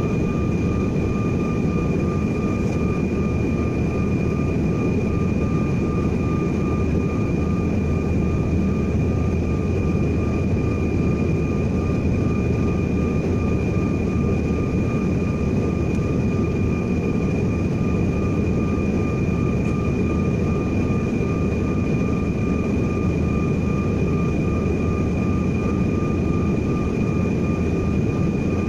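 Steady cabin noise of a Bombardier CRJ1000 regional jet in flight: an even engine and airflow rumble with a constant high whine from the turbofans running. The level holds unchanged throughout, with no change in engine power.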